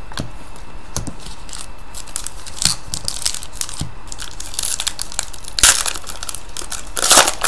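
Foil hockey card pack crinkling and tearing as it is pulled open by hand, in irregular crackling bursts, the loudest near the end.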